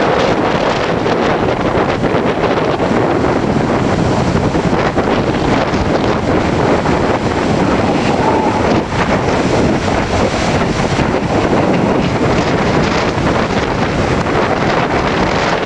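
Strong storm wind buffeting the microphone, a loud steady rush of wind noise with constant gusting.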